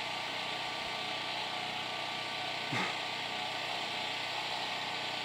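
Steady background hiss and low hum, with one short sound falling sharply in pitch a little past halfway.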